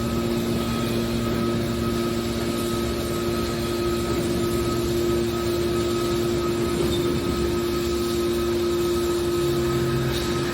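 Car shear baler's hydraulic power unit running with a steady hum.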